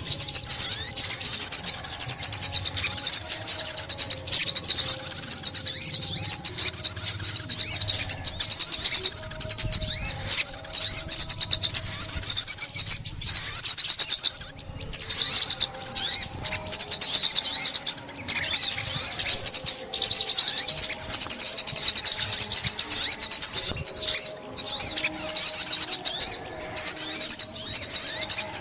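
Sunbird (ốc mít) song: a rapid, high-pitched twittering of quick chirps and trills, nearly continuous with a few short pauses.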